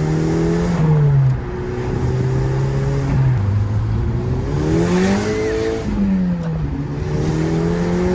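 Volkswagen GTI's 2.0 L TFSI turbocharged four-cylinder engine running hard and revving. Its pitch drops about a second in, steps down again, climbs steeply about halfway through and then falls back. The engine has freshly walnut-blasted intake valves, a cure for misfire and rough running.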